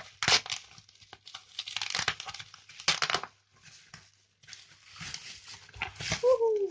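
Plastic wrapping and bubble wrap crinkling and rustling in irregular bursts as a wrapped package is handled and lifted out of a cardboard box. A brief falling tone sounds near the end.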